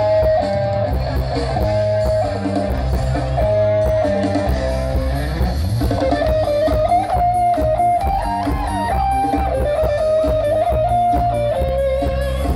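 Loud Thai parade sound-truck (rot hae) music: a plucked-string lead melody over heavy, pulsing bass and a steady drum beat, played through the truck's booming speaker system.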